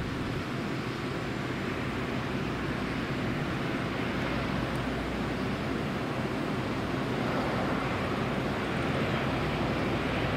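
Airbus A320-232 on final approach with gear down: its twin IAE V2500 turbofans at approach power and the rush of the airframe make a steady noise that grows gradually louder as it comes closer.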